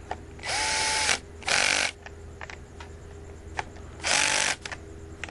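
Milwaukee 12-volt lithium-ion cordless drill/driver running in three short bursts, the first the longest, as it tightens a bolt on the cell's end plate at its low clutch setting of 4.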